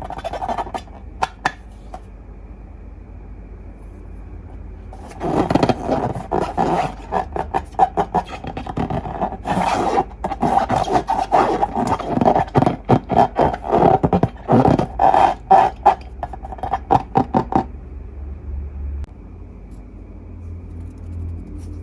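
Slime being handled: a few crackles at first, then from about five seconds in a long run of dense, rapid sticky crackling and scraping, which stops about four seconds before the end.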